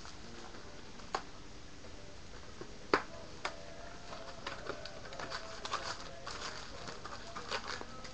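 A Topps Chrome trading-card box and its foil packs being opened and handled: a few sharp clicks and snaps, then light crinkling and rustling of wrappers and cards.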